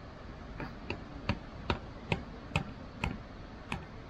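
A steady series of sharp clicks or ticks, about two to three a second.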